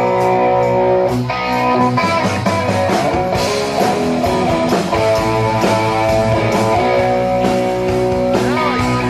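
Live band playing a rock song: electric guitar strumming over a steady drum beat.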